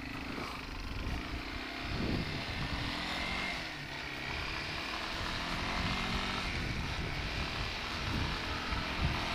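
1989 Yamaha Moto-4 250 ATV's single-cylinder four-stroke engine running under throttle as the quad picks up speed along the road, getting louder over the first couple of seconds. Wind rushes over the microphone.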